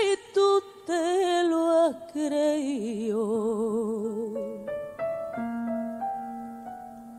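A woman sings a copla phrase with wide vibrato and ornamented runs. After about four seconds she falls silent and the piano carries on alone, playing a short line of single notes.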